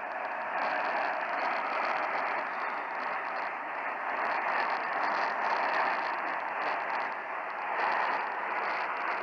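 Steady hiss of radio static from a receiver, with no programme audio on the channel.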